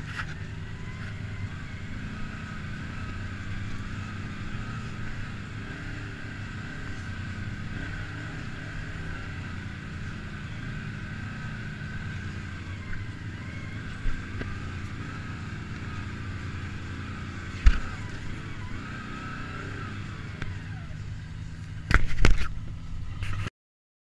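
Side-by-side UTV engine running steadily at low speed while crawling over a rocky trail, with a wavering whine above the engine note. Occasional knocks and bangs from the rough ground, a sharp one about eighteen seconds in and a cluster near the end, before the sound cuts off suddenly.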